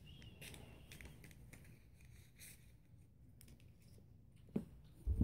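Faint scattered clicks and light rustling of someone moving about and handling things, with a short knock about four and a half seconds in and a louder, low thump at the very end.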